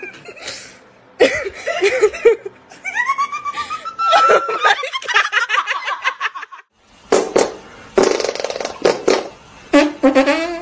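People laughing hard in repeated bursts. The laughter breaks off about six and a half seconds in, and a new round of laughing starts a moment later.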